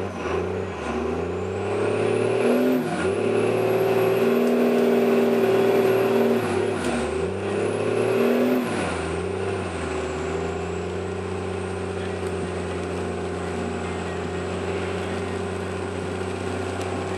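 Cummins turbo-diesel engine of a Dodge Ram pickup pulling away on snow, revving up and down several times with a high turbo whistle rising alongside the revs. After about ten seconds it settles into a steady run.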